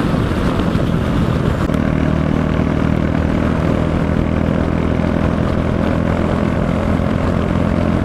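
Royal Enfield Meteor 350's single-cylinder engine running hard in fifth gear at highway speed, under heavy wind rush on the microphone. About two seconds in the sound changes abruptly to a steadier, even engine drone.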